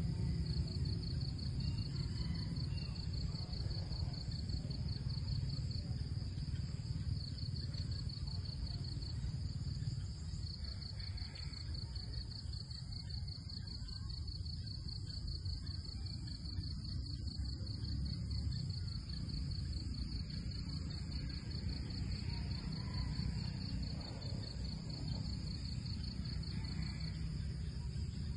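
A chorus of insects trilling steadily in a fast, even pulse at a high pitch, over a low rumble.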